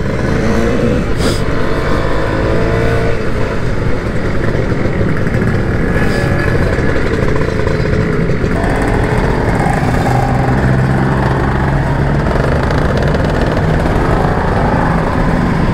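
Kawasaki Ninja R two-stroke motorcycle engine ridden at low speed through traffic, its pitch rising as it pulls away in the first few seconds, then running on steadily.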